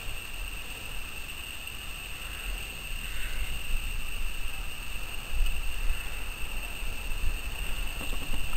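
BR Standard Class 4 2-6-0 steam locomotive No. 76084 moving slowly towards the listener: a low rumble that grows gradually louder, under a steady high-pitched whine.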